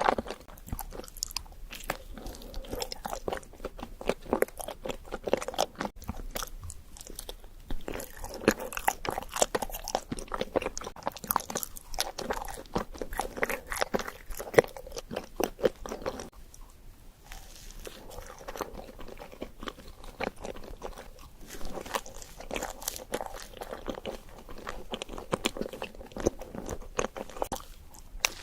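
Close-miked eating: a person biting and chewing a chocolate doughnut and white mochi, with irregular crunching and wet mouth clicks, pausing briefly about two-thirds of the way through.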